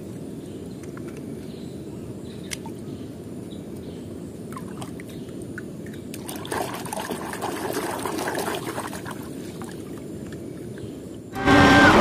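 Water trickling steadily, with louder sloshing and splashing about halfway through as a small toy car is swished through shallow water. Near the end a much louder film soundtrack cuts in suddenly.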